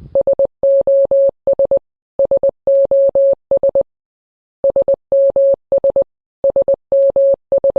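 Morse code beeps in a single steady mid-pitched tone, keyed in short dots and long dashes. The pattern of three short, three long, three short (SOS) is sent four times, in two pairs with a pause of nearly a second halfway through.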